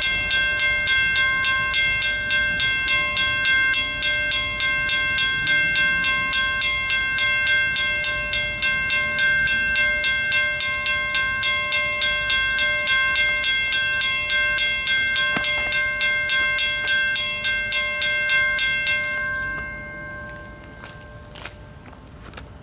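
Western-Cullen-Hayes mechanical crossing bell ringing steadily, about three strikes a second, then stopping about three seconds before the end as the crossing signal shuts off.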